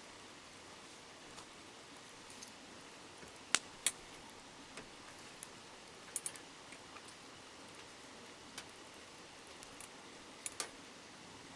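Wood campfire crackling, with sharp pops at irregular moments, the loudest a few seconds in and near the end, over the steady soft rush of a river.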